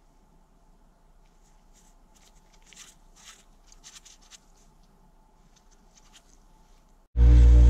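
Faint handling sounds of gloved fingers rubbing and turning a perforated metal meat-grinder plate, with soft rustles and light clicks in the middle. Near the end a loud, steady sound with a low hum cuts in suddenly.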